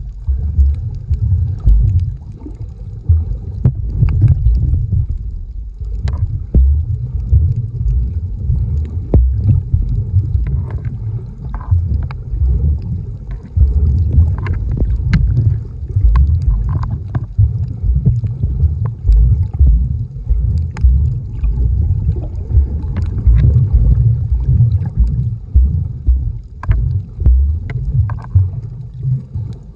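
Muffled water sound recorded by a camera held underwater: an uneven low rumble of moving water, with scattered short sharp clicks and crackles.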